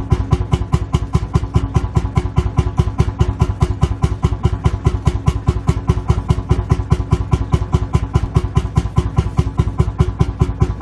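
Lanz Bulldog tractor's single-cylinder two-stroke hot-bulb engine idling in an even beat of about five firing strokes a second.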